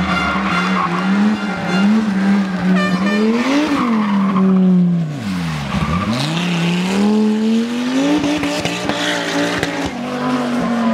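Rally car engine running hard at high revs, with tyres skidding. About six seconds in, the revs drop sharply and then climb back up.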